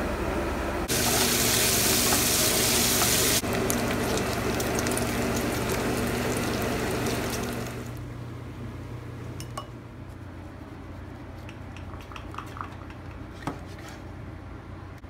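Bacon sizzling in a frying pan, a loud steady hiss with crackles that drops away about eight seconds in. After that, quieter kitchen handling: scattered light clicks and taps of utensils, the bacon strainer and a knife on the cutting board.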